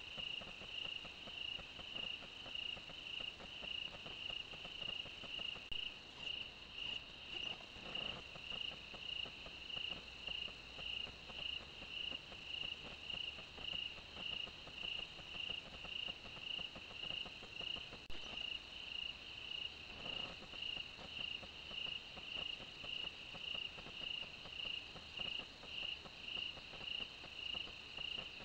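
Crickets chirping in a steady, even rhythm of nearly two high chirps a second.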